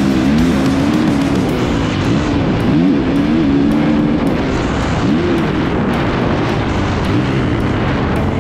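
2021 Kawasaki KX450's single-cylinder four-stroke engine revving up and down as the bike is ridden hard around a motocross track, its pitch rising and falling with the throttle. Steady wind noise on the microphone underneath.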